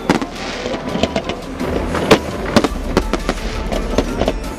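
Fireworks display: aerial shells bursting in several sharp bangs at irregular intervals, the loudest about two seconds in, over a steady rumble of the show.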